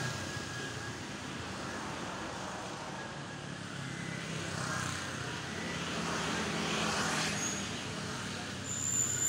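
Background road traffic: a steady noisy hum of passing vehicles that swells and fades, with a brief high whine near the end.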